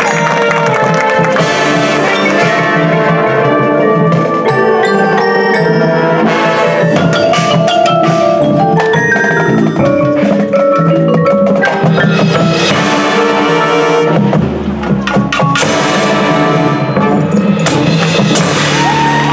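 High school marching band playing its field show, with the front ensemble's marimbas and other mallet percussion prominent over brass and drums. A deep low bass note comes in about two-thirds of the way through.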